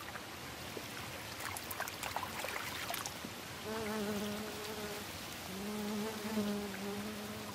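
An insect buzzing, a steady hum that starts about halfway through, breaks off briefly and starts again, with a few faint clicks before it.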